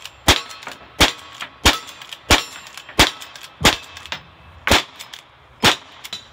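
Lever-action rifle firing a rapid string of eight shots, roughly one every two-thirds of a second, the last two further apart, with steel plate targets ringing after the hits.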